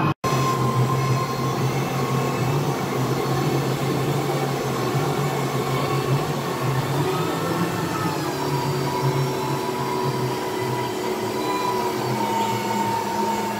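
Tour boat's engine running steadily under way on the river, a low drone with a faint higher whine over it. The sound drops out for an instant just after the start.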